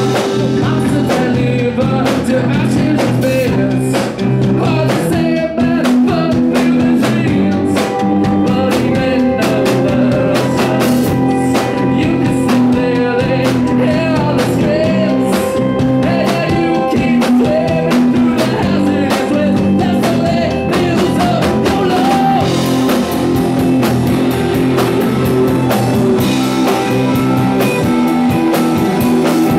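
Live rock band playing loudly: electric guitars, bass and a drum kit, with a lead vocal over them.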